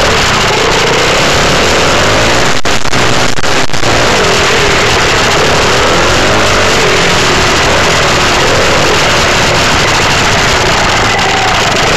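Dirt bike engine running loud and close while riding, its pitch rising and falling with the throttle.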